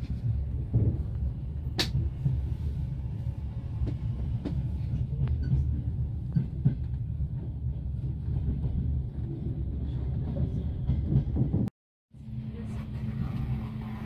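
Passenger train carriage running on the rails, heard from inside: a steady low rumble with scattered knocks and rattles. Near the end the sound drops out for a moment and comes back with a steady hum added.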